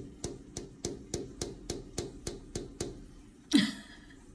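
A run of about eleven light, evenly spaced taps, three to four a second. About three and a half seconds in comes a single short, loud sound that falls in pitch.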